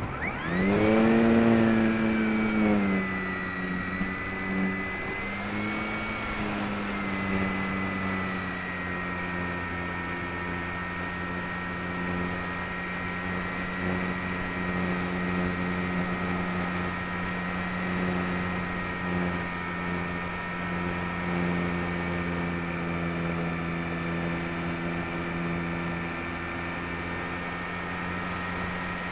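The HobbyKing Walrus glider's electric motor and propeller powering up, its whine rising quickly in pitch at the start and loudest a second or two in. It then settles into a steady whine for the rest of the flight, the pitch wavering a little over the first several seconds.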